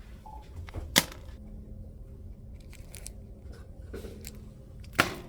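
Two sharp clicks, about a second in and again about four seconds later, over a steady low hum.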